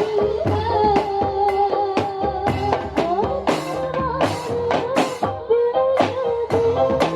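Marawis ensemble playing: a steady rhythm of hand-drum strokes under a sustained melodic line.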